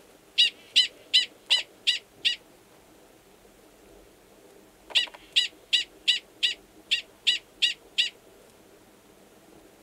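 Male Gunnison's prairie dog giving a mating call: a bout of six short calls at about three a second, then after a pause of about two and a half seconds a second bout of nine. The mating call sounds the same as the species' alarm call and is given before the male goes below ground to mate with a receptive female.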